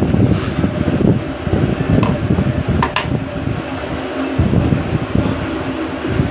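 Electric fan running, its airflow buffeting the microphone with a gusty low rumble over a faint steady motor hum. About three seconds in, one short sharp click as the steel spanner is set down on the wooden table.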